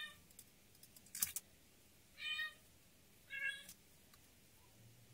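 Cat meowing: three short meows, one at the start and two more about a second apart near the middle, with a sharp click between the first two.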